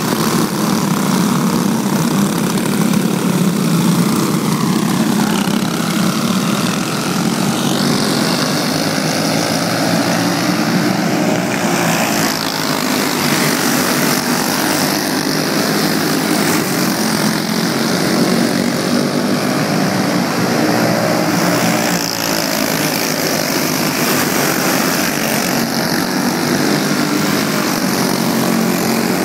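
A pack of racing karts with stock Briggs & Stratton Animal single-cylinder four-stroke engines running hard together, loud and steady, with engines rising in pitch at times as karts accelerate.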